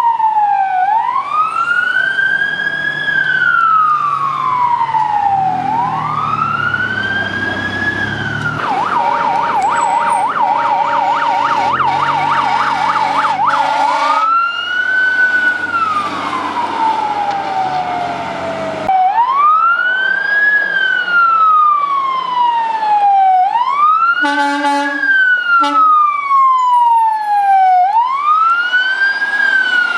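Emergency vehicle electronic siren in wail mode, rising and falling slowly every four to five seconds, switching to a fast yelp for about five seconds before going back to the wail; the low rumble of the vehicle's engine runs under the first half. A brief horn blast sounds about two-thirds of the way through.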